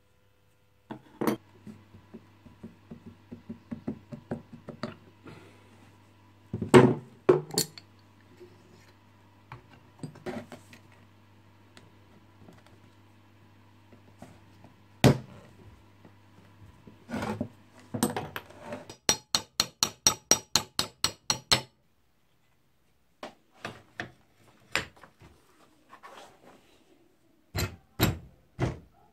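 Metal parts of an Ingersoll Rand air impact wrench clinking and knocking on a wooden workbench as they are handled and fitted together, over a faint steady hum. About two thirds of the way in there is a rapid, even run of ticks, about five a second, for two to three seconds, and near the end a few sharp knocks.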